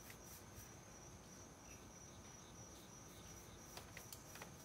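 Near silence with a faint, steady, high-pitched trill of crickets, and a few faint light clicks near the end.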